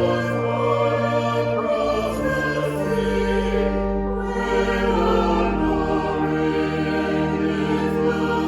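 Slow choral church music: voices holding sustained chords over a bass line that moves to a new note every second or two.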